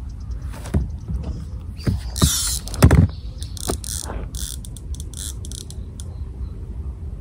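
A fishing reel's mechanism clicking and rasping in short bursts as a hooked fish is struck and reeled in, with a heavy thump about three seconds in. Wind rumbles on the microphone throughout.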